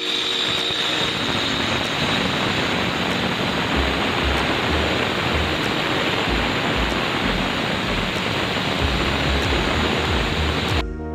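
Handheld angle grinder with a diamond blade cutting through a black granite countertop, a loud steady grinding. It cuts off suddenly near the end.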